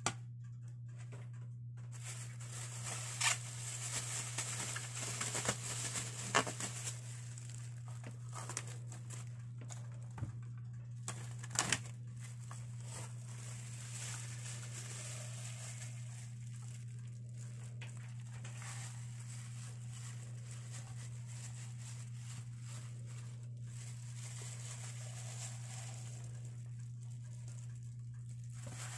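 Plastic cling film and a plastic food-handling glove crinkling and rustling as marinated chicken pieces are handled. There are a few sharp clicks in roughly the first twelve seconds, over a steady low hum.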